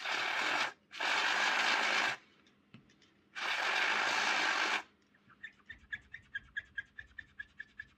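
Three bursts of aerosol cleaner spray hissing, each lasting about a second, used to clear old grease and fluff from the model locomotive's wheels and gears. They are followed by a quick, even run of small clicks, about five a second.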